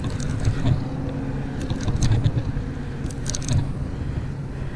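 Fishing reel being cranked to bring up a hooked grouper, giving scattered clusters of short clicks, over a steady low motor-like hum.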